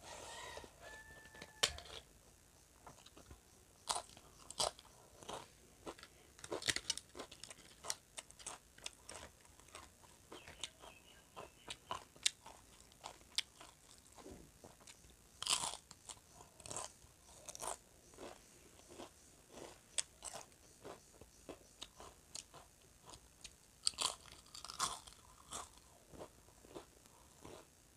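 Eating: crisp, irregular crunching as fried papad is bitten and chewed, mixed with chewing of rice and chicken, with several denser bursts of crunching through the stretch.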